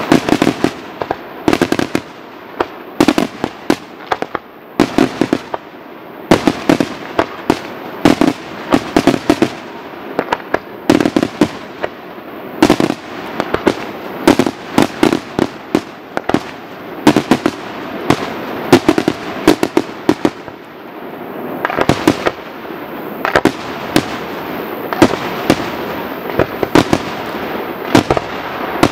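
Aerial fireworks display: a dense, irregular barrage of sharp shell bursts and bangs, several a second, over a continuous background rumble of further explosions.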